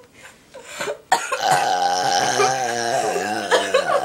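A long drawn-out burp in a burping contest: it starts suddenly about a second in and is held for about three seconds, its pitch wavering and dipping near the end.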